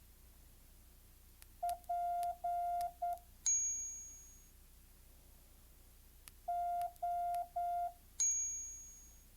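Morse code sidetone beeps from a phone trainer app: a dit-dah-dah-dit (the letter P), then a bright bell-like chime that rings and fades. A few seconds later come three dahs (the letter O), followed by the same chime.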